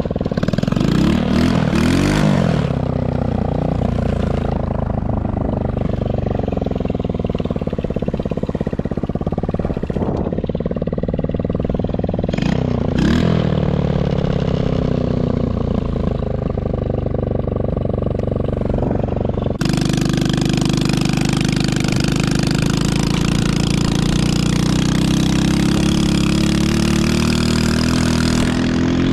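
Small 110cc single-cylinder four-stroke ATV engine run hard, its pitch sweeping up and down as the throttle is worked near the start and again about halfway through. About two-thirds of the way in the sound changes abruptly to a steadier engine note with more hiss over it, the pitch slowly climbing toward the end.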